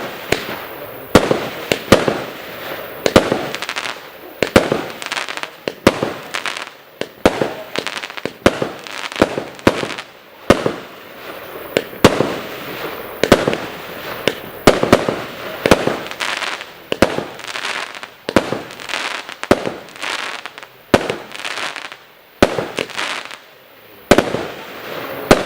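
A 36-shot, 20 mm-calibre firework cake firing in rapid succession: a steady run of sharp bangs, about one to two a second, each trailed by a brief noisy tail.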